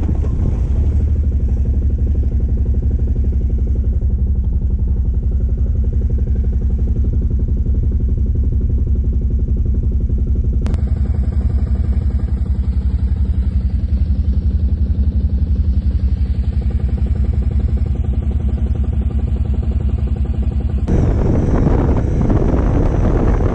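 Stels Guepard 850 ATV engine running steadily while riding, a dense low drone with strong low-pitched layers. The higher noise changes abruptly twice where the footage is cut.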